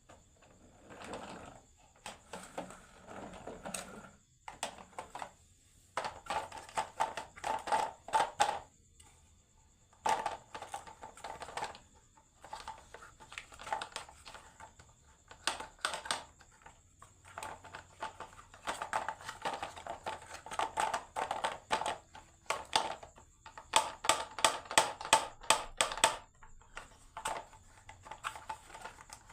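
Marbles rolling and clattering down a wooden HABA marble run: rapid trains of clicks and rattles in bursts of a few seconds, with short pauses between runs.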